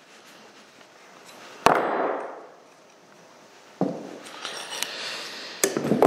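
Metal tools and valve parts clanking on a workbench while a nut is worked off a tractor hydraulic valve: a sharp clank about a second and a half in, another near four seconds, then smaller rattles and clicks.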